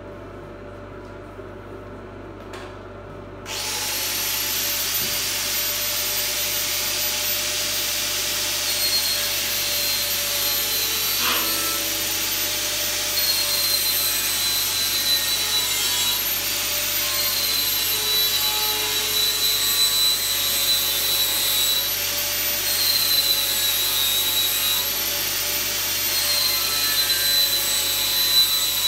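Angle grinder fitted with a sanding disc starts up about three and a half seconds in and runs steadily, sanding the edge of a painted metal sheet, its high whine dipping slightly in pitch now and then as it is pressed to the work. Before it starts, a quieter steady hum.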